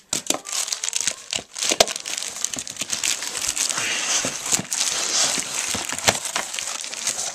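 Clear plastic wrapping crinkling and crackling without a break as a car amplifier wrapped in it is handled in its cardboard box.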